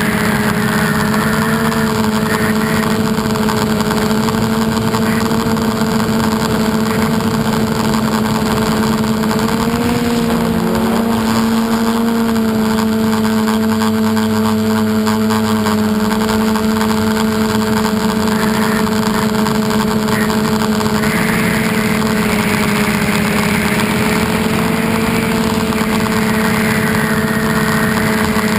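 The electric motors and propellers of an FPV aircraft running in flight, heard from the onboard camera as a steady hum with a layer of wind rush. The pitch wavers briefly about ten seconds in.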